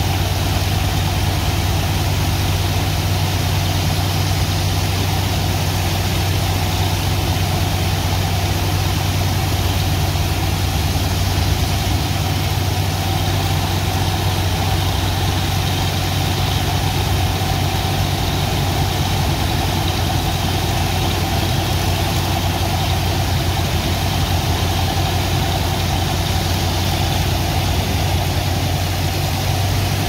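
Steady drone of engine-driven pumps running without a break, with the continuous hiss and splash of a high-pressure water jet blasting into wet sand.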